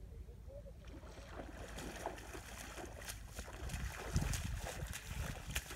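A person wading through shallow seawater, feet splashing with each step, loudest around four seconds in. Wind rumbles on the microphone underneath.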